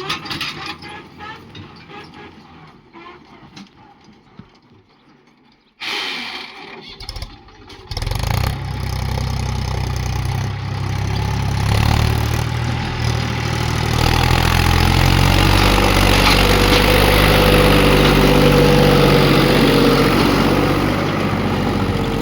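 Heavy vehicle's diesel engine starting about eight seconds in, then running loudly and steadily, growing louder for a few seconds before it holds.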